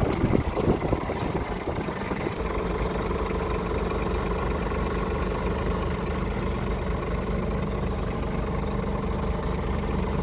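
Scania R410 truck tractor's six-cylinder diesel engine idling steadily, heard from inside the cab. There are a few knocks and bumps in the first second or two.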